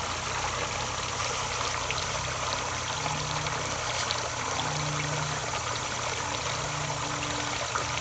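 Steady rushing noise like running water, with a faint low hum coming and going.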